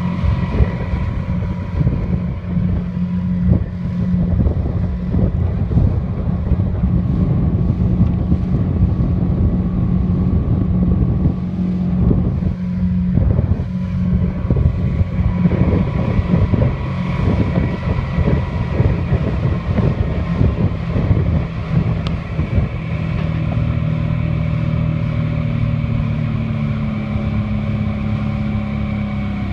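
Suzuki 40 hp outboard motor running steadily with the boat under way at speed, a constant engine hum over rushing water, with heavy wind buffeting on the microphone.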